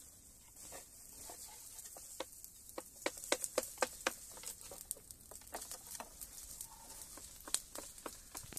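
Fire burning through dry brush and twigs, crackling with many sharp pops that come thickest in the middle, over a faint steady high hiss.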